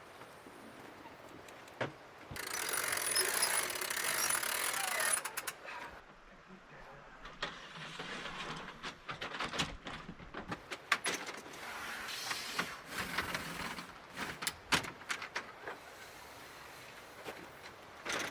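Metal mechanisms being worked: irregular ratchet-like clicks, knocks and rattles, with a loud rushing hiss lasting about three seconds near the start.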